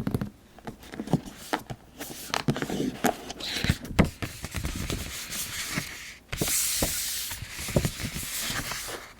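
Keyboard packaging handled while unboxing: scattered light taps and knocks, then, about six seconds in, a steady rubbing or sliding noise for about three seconds, as of a box or wrapping being slid or rubbed.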